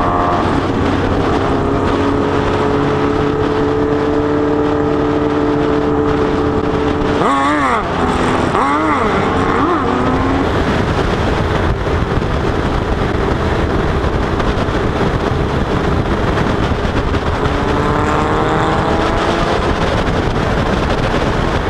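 Sport motorcycle engine running at road speed under heavy wind rush. Its note holds steady, then swells up and down in quick revs a little past a third of the way in, and climbs again near the end as it accelerates.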